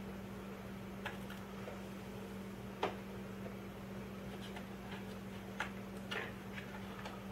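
Scattered light plastic clicks and taps of small rotary-tool accessories being pulled from and pressed into the molded slots of a plastic accessory case, the sharpest click about three seconds in. A steady low hum runs underneath.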